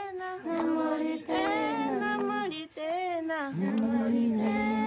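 Group of women singing a cappella, with no instruments, in drawn-out phrases; a long held note begins a little past the halfway point.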